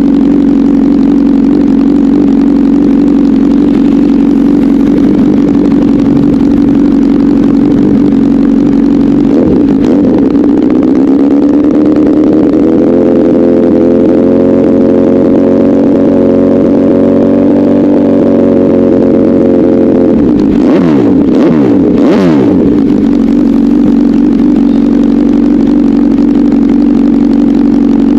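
Honda CBR1000RR inline-four with an SC-Project aftermarket exhaust, running loud and steady. Its revs climb about ten seconds in and are held higher for several seconds, then it gives a few quick throttle blips that fall away before settling back to a steady run.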